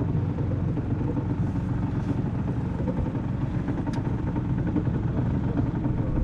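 Engine of a rescue vehicle under way, a steady low drone.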